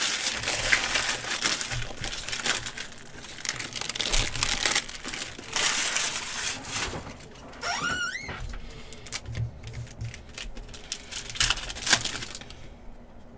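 Foil trading-card pack wrappers being crinkled and torn open by hand, in irregular bursts of crackling. A short wavering squeak rises in pitch about eight seconds in.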